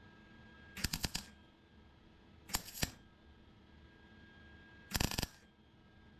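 MIG welder laying tack welds along a crack in sheet-steel firewall: three short bursts of crackling arc, each under half a second, roughly two seconds apart.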